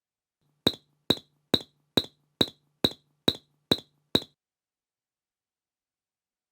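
Recreation of Tara-chan's footstep sound effect from Sazae-san: nine light clinking taps, evenly spaced at a little over two a second, each with a bright ring. A faint low hum sits under the taps and stops with them.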